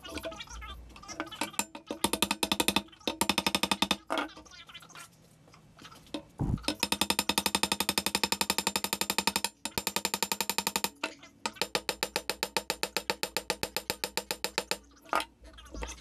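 Rapid, even mechanical clicking, about a dozen clicks a second, in several runs of one to three seconds with short pauses between.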